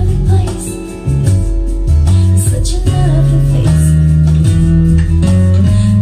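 Loud music with guitar and a heavy bass line, played through a DIY loudspeaker system with woofers and subwoofers as a speaker sound test. The volume dips briefly about a second in.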